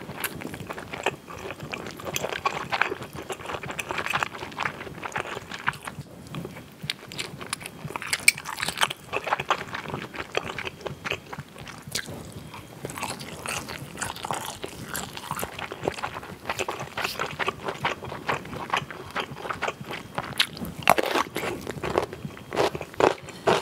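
Close-miked biting and chewing of a grilled cheese fishcake on a skewer: soft, wet mouth sounds with many short sticky clicks, coming in clusters as she takes each bite.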